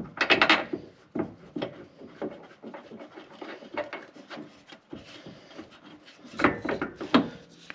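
Small knocks, scrapes and rattles of a truck bed step's mounting bracket and bolts being handled and threaded in by hand: a burst of rattling at the start, scattered knocks and rubbing, then another louder cluster near the end.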